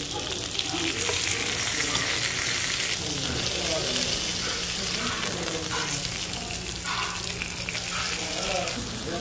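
Meat frying on a hot cooking surface with a steady sizzle.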